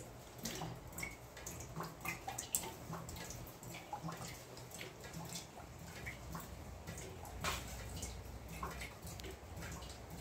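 Water dripping and tapping in irregular drops, faint, with scattered small clicks.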